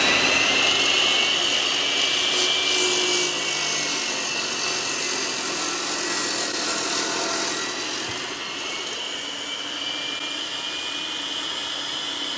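iQ dry-cut masonry saw with built-in dust vacuum running at full speed with a high, steady whine while its blade cuts through a concrete block. The cutting grind is loudest over the first several seconds, and the motor stops right at the end.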